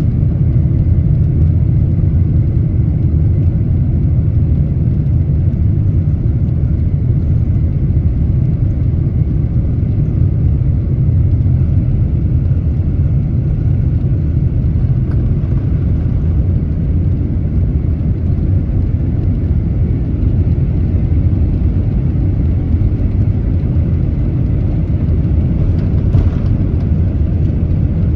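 Boeing 767-300ER cabin noise heard from a window seat over the wing area: a steady, loud low rumble of jet engines and airflow.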